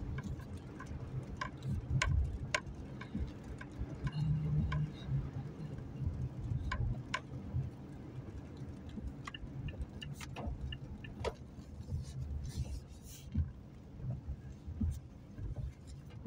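Car driving on a rain-wet road, heard from inside the cabin: a steady low road rumble with scattered, irregular light taps of raindrops on the car.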